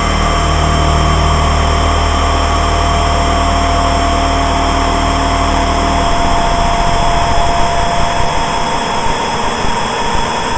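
Homemade DIY synthesizers playing an electronic drone through delay and reverb: several steady held tones over a hiss of noise, with a low bass drone that drops out about six seconds in, and a mid tone that fades near the end.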